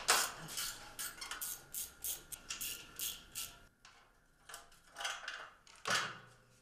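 Metal hand tools clicking and clinking on a motorcycle's exhaust hardware as the exhaust is unbolted: quick clicks, several a second, for about three seconds, then a few separate clinks.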